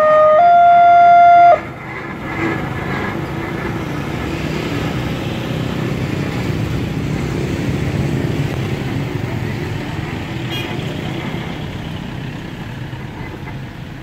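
Railway level-crossing warning siren sounding a slow two-tone alternation, which cuts off suddenly about a second and a half in, signalling that the train has cleared. Then motorcycles and a car run across the crossing, a steady low engine and road noise.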